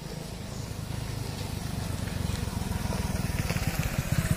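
A vehicle's engine running with a rapid, even low putter that grows steadily louder.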